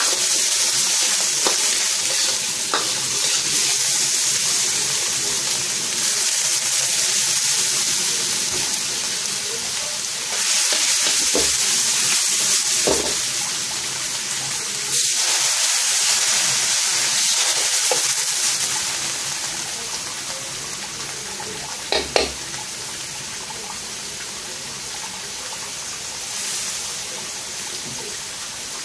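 Stir-frying in a black carbon-steel wok: noodles, meat, egg and greens sizzle over high heat while a metal ladle stirs and scrapes against the pan. The sizzle eases off about two-thirds through, followed by two sharp knocks.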